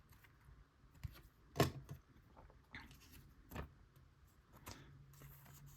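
Faint handling noise from trading cards: a few short clicks and scrapes of card stock being moved and set down.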